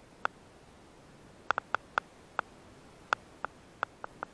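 About a dozen sharp, short clicks at irregular intervals, several in quick succession in the middle, over a faint background hiss.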